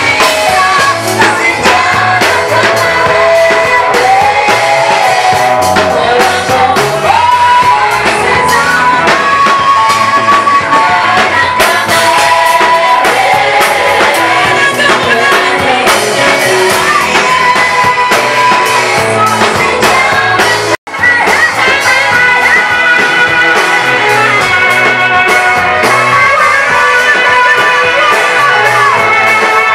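Live Swahili gospel praise music: a group of singers with instrumental accompaniment. The sound drops out for an instant about two-thirds of the way in.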